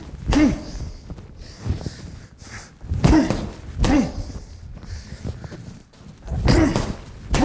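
Gloved punches landing on a hanging TKO heavy bag in short combinations, each strike paired with a short grunt of breath from the boxer. The punches come in clusters: one just after the start, two close together about three to four seconds in, and two more near the end.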